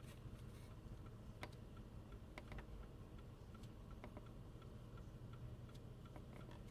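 Faint, scattered ticks and clicks over a low, steady hum.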